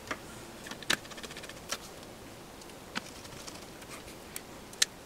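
Scattered light clicks and taps of a metal instrument chassis and parts being handled on a workbench. There is a short rattle of small ticks just after one second in and a sharper click near the end.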